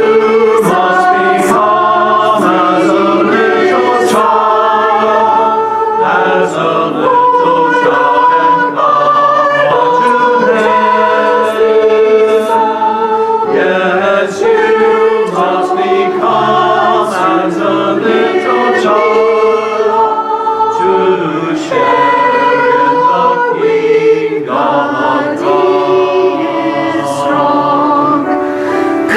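Church choir of mixed men's and women's voices singing together.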